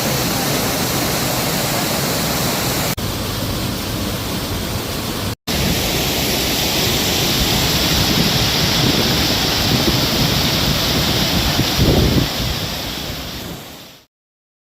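Steady rushing of a waterfall, with a brief break about five seconds in, fading out near the end.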